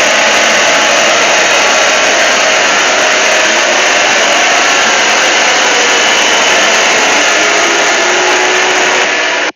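Mock Emergency Alert System alarm, distorted into a very loud, steady, harsh wall of noise with faint tones buried in it. It cuts off abruptly near the end.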